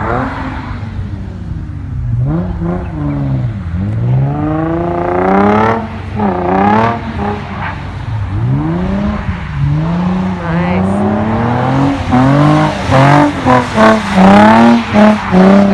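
Car engine revving hard, its pitch climbing and dropping repeatedly as the throttle is worked, with quicker, louder rev spikes in the last few seconds.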